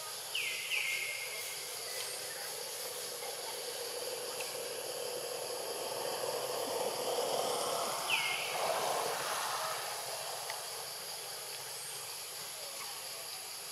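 Outdoor ambience of a steady high-pitched hiss. Short high calls fall in pitch and then level off: two about half a second in and one about eight seconds in. A louder rushing noise swells and fades between about six and nine seconds.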